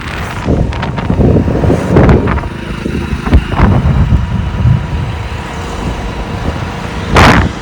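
Vehicle and road-traffic noise while riding, a dense low rumble with wind buffeting the microphone, and a loud short burst of noise near the end.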